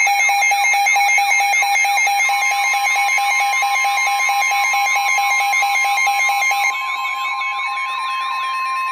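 Weather radio alert alarms sounding together: a fast pulsing beep and repeated sweeping electronic chirps, about three a second. About two seconds in, a steady single tone joins them, the NOAA Weather Radio warning alert tone. The pulsing beep cuts off about two seconds before the end.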